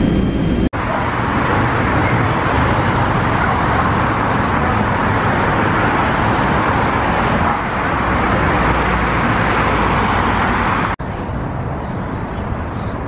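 Steady noise of freeway traffic, many cars passing at speed close by. It cuts off abruptly about eleven seconds in and gives way to a quieter, more distant traffic hum.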